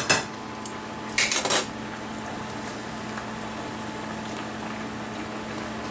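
Metal tongs click against a sauté pan a few times about a second in, then the sauce simmers quietly over a steady hum.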